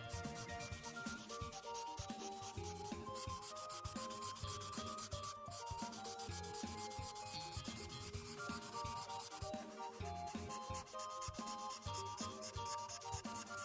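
Ohuhu Honolulu marker tip rubbing on paper in rapid back-and-forth strokes, filling in a large area of colour.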